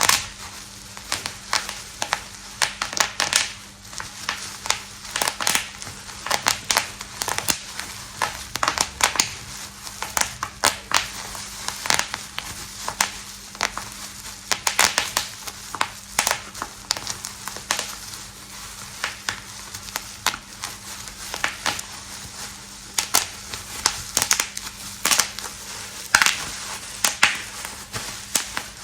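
Packaging being crinkled and crushed by hand: dense, irregular sharp crackles, several a second.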